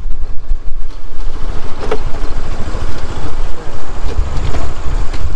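Motorcycle riding along, its engine running under a loud, steady rumble of wind buffeting the microphone.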